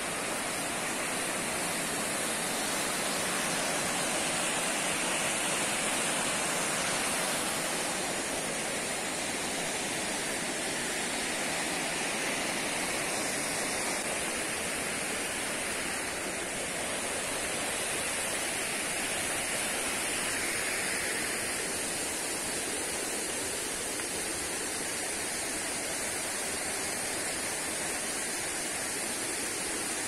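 Steady rushing of water from a waterfall, an even, unbroken noise, with a steady high-pitched hiss above it.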